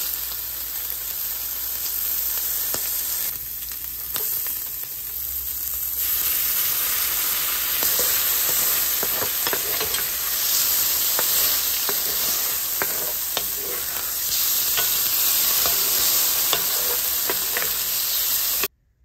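Shrimp sizzling in hot oil in a skillet, turned with a fork and then stirred with a wooden spatula that scrapes and taps against the pan. The sizzle cuts off suddenly near the end.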